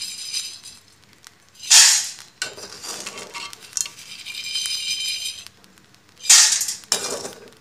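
A perforated metal skimmer (jhara) scrapes through hot salt in an iron wok (kadai), scooping out roasted black chickpeas with salt sifting through the holes. There are two loud scrapes, about two and six seconds in, with a quieter rattle of salt and chickpeas between them.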